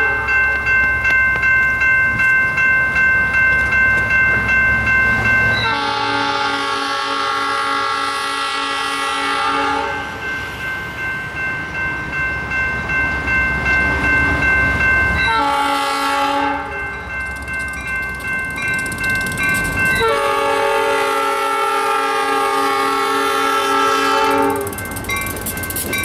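Diesel locomotive air horn sounding a long, a short and a long blast, the close of the grade-crossing signal. Under it an electronic crossing bell (General Signals Type 2 e-bell) dings about twice a second. Near the end the low rumble of the locomotive reaches the crossing.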